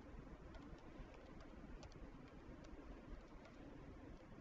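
Faint computer keyboard keystrokes: a dozen or so sharp, irregular clicks over a low steady background hum.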